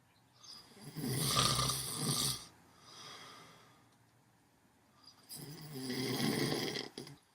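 Snoring in deep sleep: two loud snoring breaths about four seconds apart, one about a second in and one about five seconds in, each lasting a second or more, with a faint breath between them.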